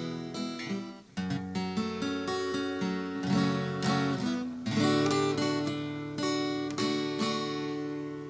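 Acoustic guitar strumming chords, the instrumental opening of a song, with a short break about a second in.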